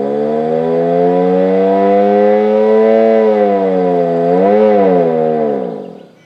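Fedelcode Model 5 outdoor warning siren sounding its attack signal. The loud wail holds high, dips and swells back once about four and a half seconds in, then winds down and fades near the end. The uploader puts its poor sound down to an underpowered VFD driving the siren's motor, not a bad motor.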